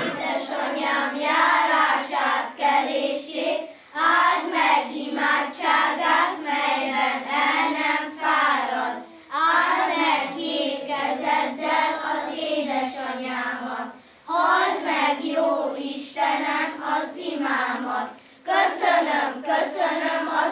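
Children's choir singing a song together without accompaniment, in phrases of about four to five seconds, with short breath pauses between them.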